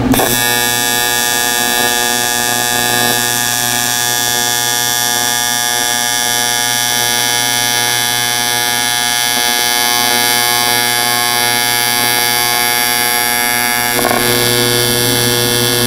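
AC TIG welding arc on aluminum, from an AHP AlphaTIG 200X set to about 88 amps, buzzing steadily as a bead is laid with filler rod. Its tone shifts slightly about fourteen seconds in. This is the amperage that gives a bead with just a little rise, which he judges about right.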